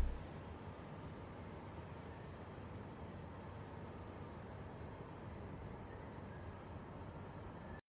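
Faint insect chirping, like a cricket: one high note pulsing several times a second, steady, over a low hum. It cuts off abruptly near the end.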